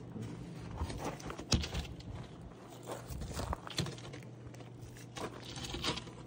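Wooden OSB crate lid being lifted off and moved aside: scattered knocks and scrapes of the board, with footsteps crunching on gravel.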